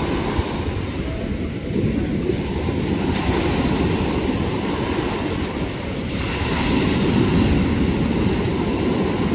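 Rough sea surf, stirred up by recent storms, breaking and washing ashore as a continuous rushing noise. It swells louder about six seconds in as a bigger wave breaks.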